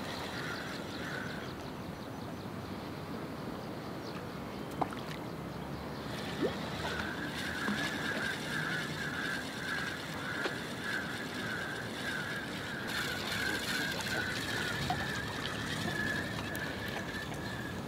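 Spinning reel being wound in to retrieve a metal spinner lure: a steady whirr with a fast pulsing flutter that starts about six seconds in, just after a couple of sharp clicks. Light wind and sea noise underneath.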